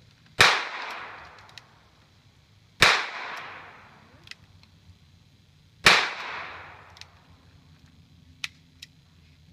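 Three shots from a .22 High Standard Double-Nine revolver, spaced two to three seconds apart, each followed by an echo dying away over about a second.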